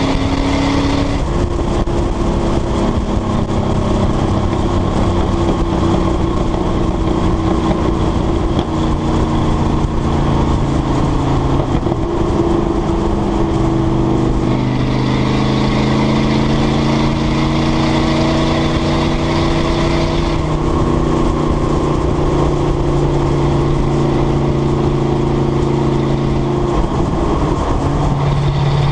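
Exhaust of a 1995 Ford F150's 302 V8 while driving. The engine note holds steady and shifts in pitch several times, over tyre and wind noise.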